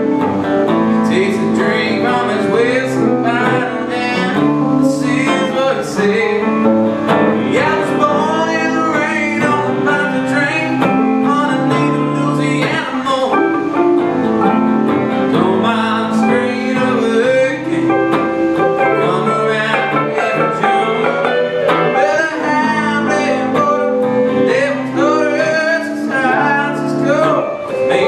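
Live duo of two electric guitars playing a song together, with a man singing over them.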